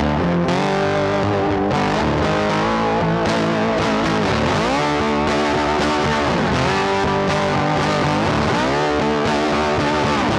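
Background rock music led by distorted electric guitar, with bent notes.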